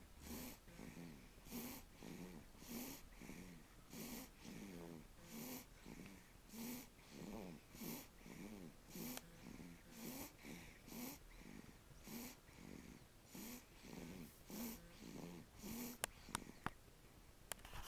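Snoring in quick, even breaths, a short rasping snore nearly twice a second. Near the end a few sharp clicks cut in.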